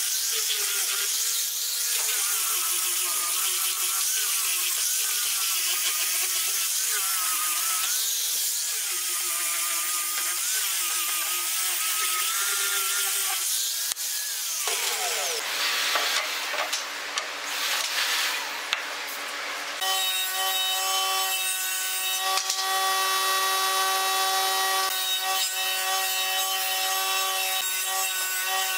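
Angle grinder with a sanding disc sanding a wooden frame: the motor's whine wavers up and down in pitch as the disc is pressed and eased on the wood. About fifteen seconds in it is switched off and winds down in a falling whine. About two-thirds through, a different steady machine hum with several fixed tones starts.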